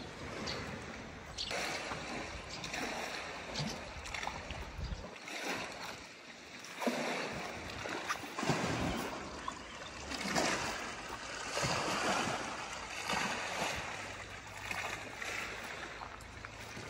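Lake water lapping and splashing against the stone shore wall, coming and going in uneven swells every second or two.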